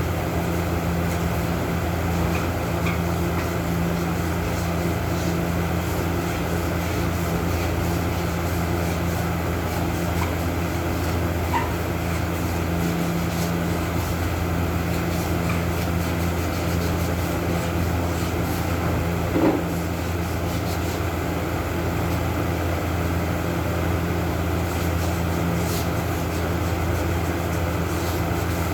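An electric motor running steadily with a low, even hum.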